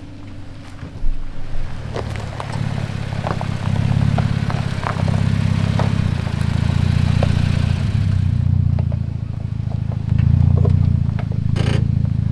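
Off-road 4x4 engine running under load at crawling speed over a rocky trail. It swells a few times, with scattered clicks and scrapes of rock under the tyres.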